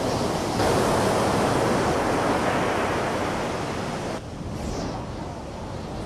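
Ocean surf: a steady rush of waves that grows louder about half a second in and drops off abruptly about four seconds in.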